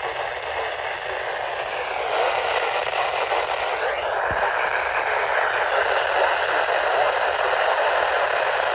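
Static hiss from a weak NOAA Weather Radio broadcast on a weather radio receiver. A faint whistle drifts down in pitch, then sweeps sharply upward about four seconds in. The hiss grows louder about two seconds in, and no clear voice comes through.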